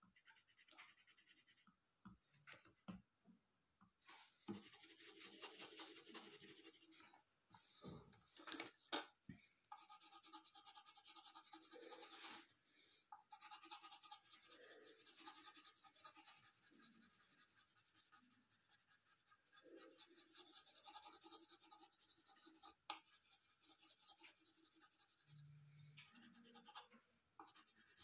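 Faint scratching of a colored pencil shading on paper, in uneven strokes, with a couple of sharp clicks about a third of the way in.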